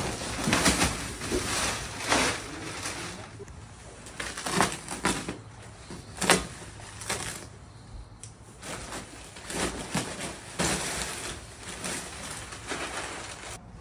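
Plastic wrapping of compressed pine-shavings bales being cut, torn and pulled apart, a series of short tearing and crinkling sounds with loose shavings spilling and rustling.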